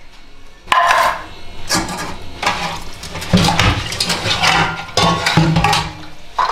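Dishes being washed by hand: plates and steel bowls knocking, clattering and scraping in a stainless-steel sink, in irregular clusters.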